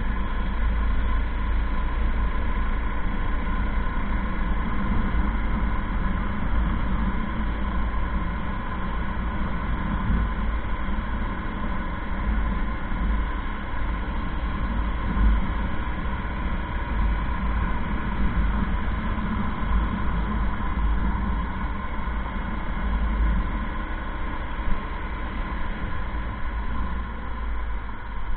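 Motorcycle riding steadily at road speed: an even engine and road noise under a heavy rumble of wind buffeting the microphone.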